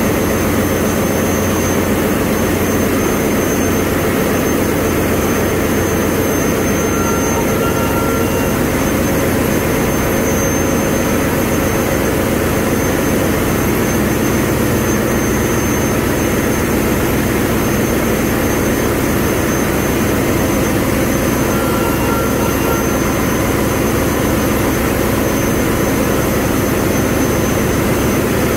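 Loud, steady engine-room noise from running diesel machinery: a dense, unchanging rumble with no pauses.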